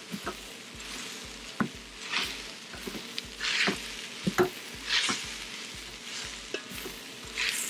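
Chopped kale, rice and tomato sizzling in the hot stainless steel inner pot of an Instant Pot on its sauté setting, with a silicone spatula stirring and scraping through them in brief strokes every second or so.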